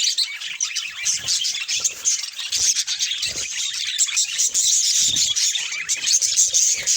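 Budgerigars chattering and warbling nonstop in a dense, high twittering, with a few faint low thumps mixed in.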